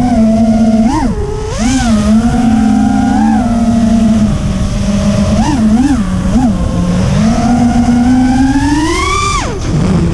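FPV quadcopter's brushless motors spinning HQProp Ethix P3.5 propellers, whining in pitch with the throttle: several quick up-and-down blips, then a steady climb for a couple of seconds that drops off sharply near the end.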